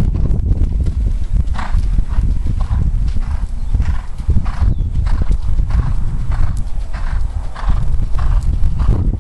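A horse cantering, blowing out a breath in time with its strides about twice a second, over a steady low rumble.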